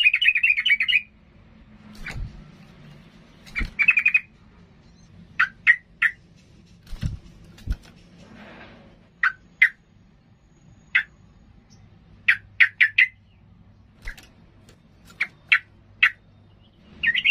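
Yellow-vented bulbul singing: a fast warbling song breaks off about a second in, then short sharp chirps come singly and in quick clusters of two to four, with a few soft thumps between them, and the fast song starts again near the end.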